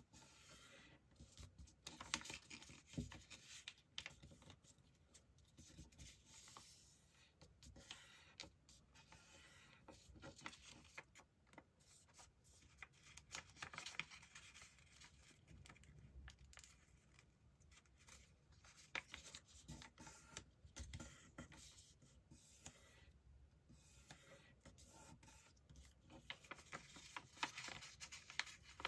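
A sheet of A4 paper being folded by hand into a paper airplane: faint, intermittent rustling and rubbing as the folds are pressed and creased with the fingers, with scattered short clicks and taps.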